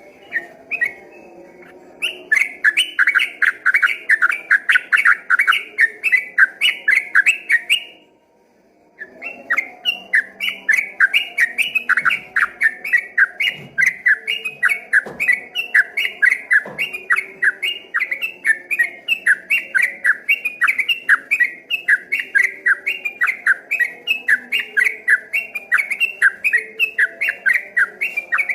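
Sooty-headed bulbul (trucukan) singing its rapid rolling 'ropel' song: a fast, steady stream of short bright notes, about four or five a second. The song breaks off for about a second near the 8-second mark, then runs on.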